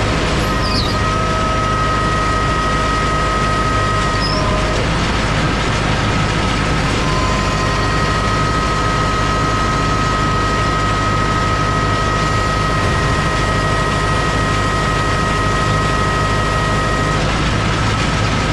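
Tractor and John Deere 458 round baler running steadily while baling hay: a constant low engine drone with a thin, steady high whine over it.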